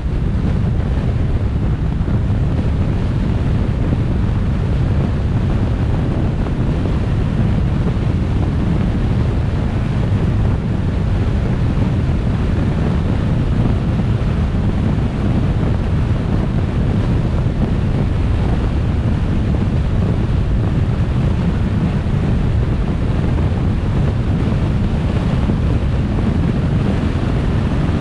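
Steady low rumble of wind buffeting the microphone of a moving vehicle, mixed with road noise, unchanging throughout.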